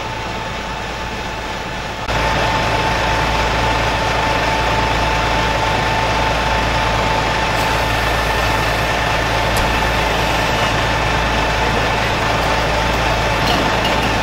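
Fire engine running steadily on scene, with a constant whine over the engine noise. It becomes louder about two seconds in and then holds steady.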